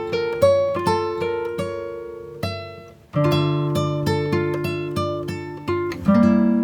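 Background music of plucked acoustic guitar notes, with a short break about three seconds in.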